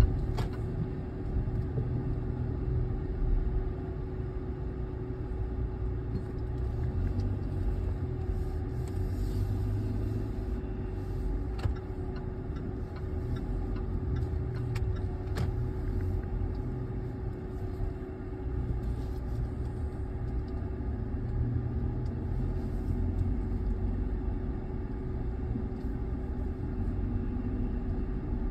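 Low, steady rumble of a car heard from inside its cabin, with a steady hum and a few faint clicks.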